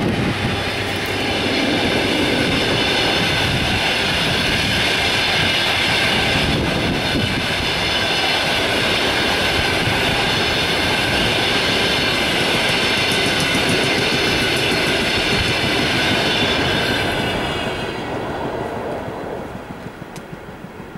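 Passenger coaches of an express train rolling past at speed: a steady rumble of wheels on rail with a high ringing over it. About eighteen seconds in the sound drops away as the last coach passes and fades.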